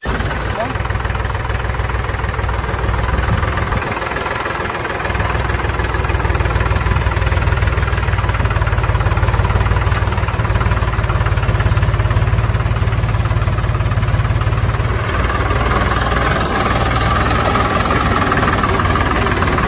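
Engine running steadily with a low rumble, a little louder after about five seconds: an engine sound effect dubbed over unpowered plastic toy vehicles.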